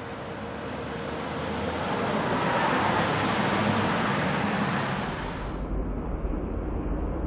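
Front-load garbage truck's engine and hydraulics working as its forks lift a dumpster up over the cab. A steady rushing noise builds and then eases, and a low rumble grows near the end.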